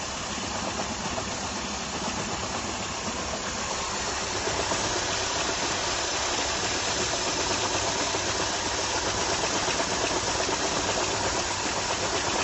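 BMW engine running with an odd mechanical noise, which the owner suspects comes from the flywheel or the timing. It grows louder about four seconds in.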